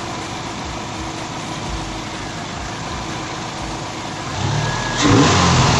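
Car engine fitted with an AEM short ram intake, idling steadily, then revved about four seconds in, the rev rising and getting louder toward the end.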